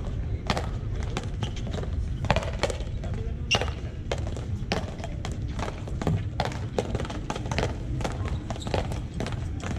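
Paleta frontón rally: the wooden paddles strike the rubber ball and the ball smacks against the frontón wall, giving a quick, irregular series of sharp knocks, several a second. A steady low rumble runs underneath.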